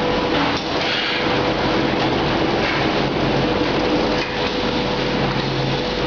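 Automatic powder bag-packing line running: belt conveyor and bagging machinery making a steady mechanical din with a constant hum, and a few sharp clanks, one about half a second in and another about four seconds in.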